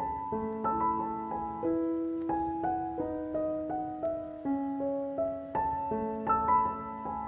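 Background piano music: a gentle melody of plucked-sounding, sustained notes at an even pace.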